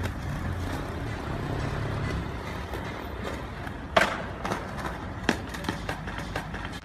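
Skateboard wheels rolling on concrete with a low rumble, then several sharp clacks of the board hitting the ground, the loudest about four seconds in.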